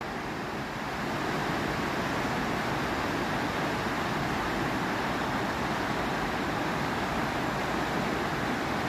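Water of a tall waterfall rushing down a cliff, a steady even noise that gets a little louder about a second in.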